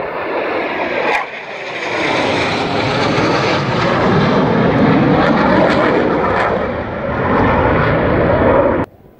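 Jet engine roar from two Blue Angels F/A-18 Hornets flying past together. The roar builds to a loud, steady peak, dips briefly and sweeps down about a second in, then cuts off suddenly near the end.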